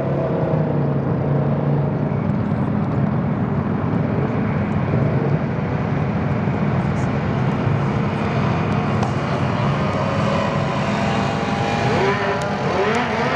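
Bombardier DS650 quad's single-cylinder four-stroke engine running steadily at low revs, then revving up in rising sweeps near the end as it launches down the drag strip.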